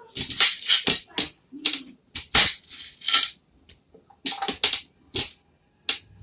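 Quartered raw potatoes knocking against the plastic of a Tupperware microwave pressure cooker as they are put in, heard as about a dozen sharp, irregularly spaced knocks.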